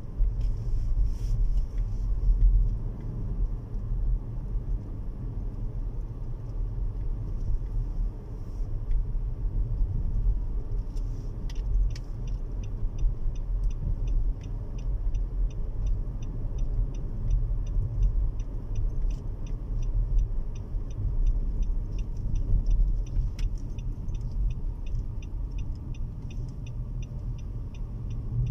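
Inside a moving car: steady low rumble of engine and road noise. A light, regular ticking, about two or three ticks a second, starts about twelve seconds in.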